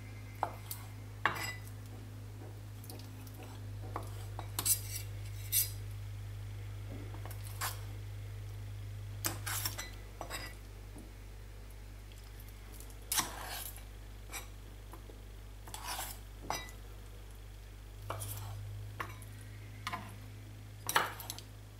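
Kitchen knife tapping and cutting against a plastic cutting board, with metal tongs clicking, as tender boiled octopus is cut into pieces: irregular sharp taps scattered throughout, over a steady low hum.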